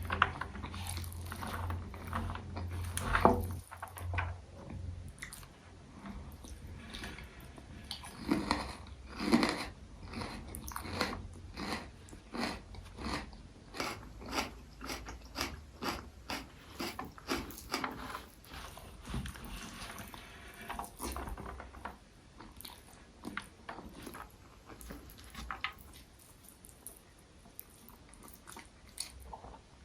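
Close-miked mouth sounds of eating egg curry and rice: repeated biting and chewing in quick runs of wet clicks and smacks, with a few louder bites near the start. The chewing is busiest in the middle and thins out near the end.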